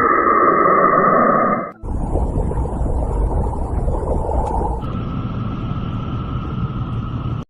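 Space radio-wave recordings converted into sound: an eerie steady hum with a whistling tone over hiss. It cuts abruptly to a different noisy rumble about two seconds in, and to another toned hum about five seconds in.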